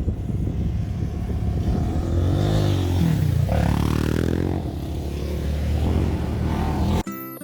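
Motor vehicle engine running close by, its pitch rising and falling as it revs and passes. Piano music cuts in abruptly near the end.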